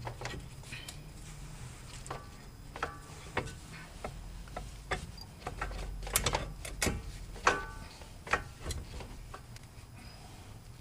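Metal clinks and knocks of a brake caliper and its hardware being handled and slid over the rotor, some clinks ringing briefly, the loudest a little past the middle. A low steady hum runs underneath.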